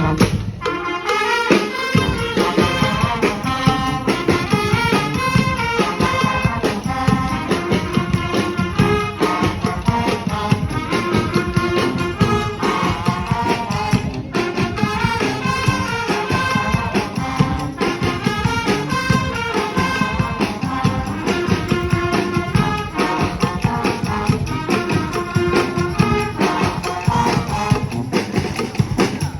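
Street brass band playing live: horns over drums and hand percussion with a steady beat. The low drums drop out for a moment near the start.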